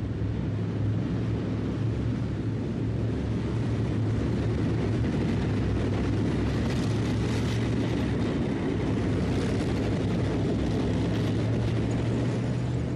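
Armoured military vehicles driving over sandy ground: a steady, deep engine drone with running-gear noise.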